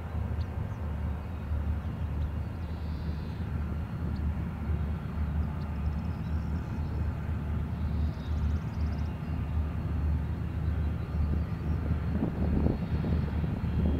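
Low, steady drone of a distant diesel locomotive engine, growing slightly louder toward the end, with a few faint bird chirps.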